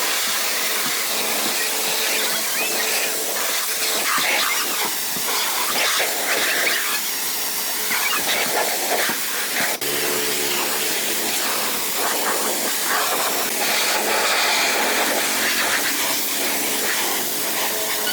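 Loud, steady hiss of a high-pressure spray.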